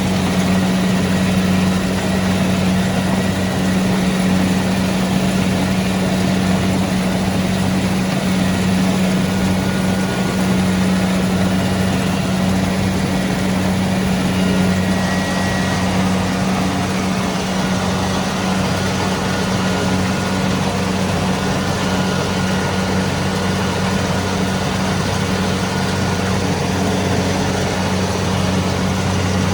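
Kubota DC-70 Pro combine harvester's diesel engine running steadily: a constant, even drone with no change in speed.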